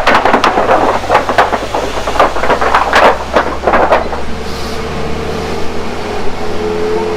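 Safari ride truck driving on a rough track, its body clattering and rattling for about four seconds, then settling into a steady engine drone with a faint held tone.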